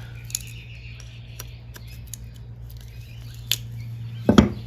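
Sidchrome ratchet handle, freed up from seized with WD-40, being worked in a vise: its mechanism gives scattered sharp clicks, with a louder click and knock near the end.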